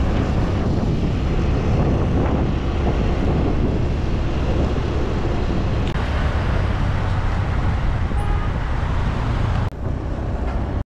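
Wind rushing over the microphone with the motorbike's engine and road noise while riding through traffic. There is a steady low rumble, and the sound briefly drops out near the end.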